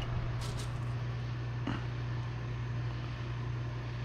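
Steady low hum of a running appliance, with a couple of faint clicks about half a second and nearly two seconds in.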